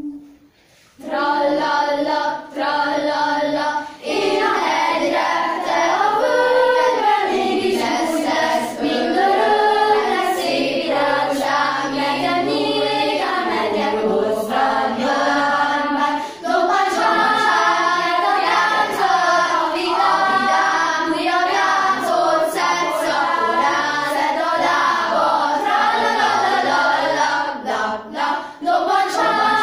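A young school choir singing together, several voices in a sustained song with the melody rising and falling; the singing starts about a second in and carries on with only brief pauses for breath.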